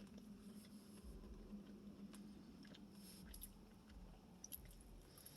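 Faint chewing of food, with a few soft mouth clicks over a low steady hum.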